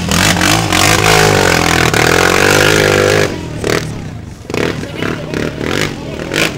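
Off-road racing vehicle's engine revving hard, its pitch climbing for about two seconds, then dropping off sharply around the middle, followed by lower, uneven engine sound.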